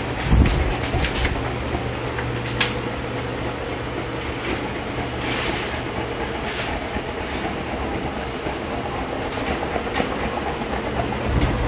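Steady mechanical hum and noise, with a few sharp clicks about half a second, two and a half and ten seconds in.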